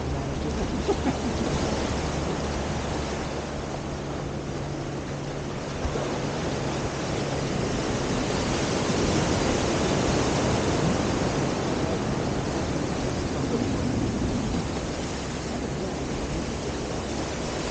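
Small Gulf of Mexico waves washing onto a shell beach, mixed with wind noise on the microphone, a steady rushing that swells a little in the middle.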